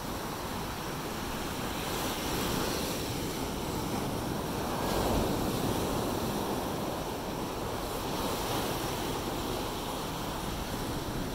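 Ocean surf washing steadily on a beach, swelling a couple of times, with wind rumbling on the microphone.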